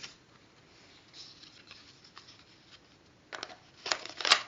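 Paper or card being handled: a soft rustle, then a few sharp clicks and taps near the end.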